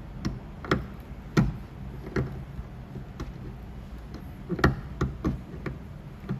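About nine sharp, irregularly spaced taps on a car door's sheet metal during paintless dent repair, typical of tapping down high spots with a knockdown tool. The loudest come about a second and a half in and near the two-thirds mark.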